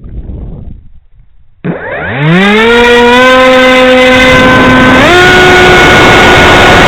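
Battery-powered electric motor and propeller of a radio-controlled plane spinning up: a whine that starts suddenly about a second and a half in, rises quickly in pitch and settles into a steady tone, then steps higher at about five seconds as the throttle is opened further. Before it, only faint rumbling noise.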